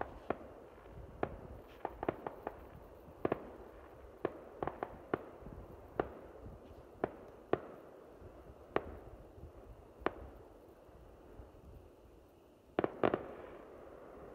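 Distant fireworks going off: sharp pops and bangs at irregular intervals, with a louder cluster of bangs near the end.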